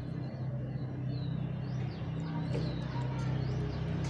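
Small birds chirping with short, high, falling calls every second or so over a steady low hum.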